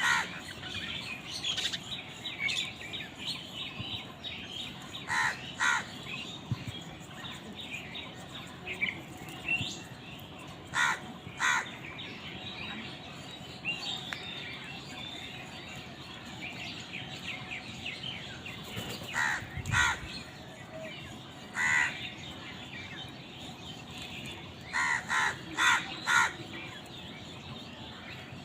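Crows cawing in short runs of two or three calls every few seconds, with a quicker run of four or five calls near the end, over steady chirping of smaller birds.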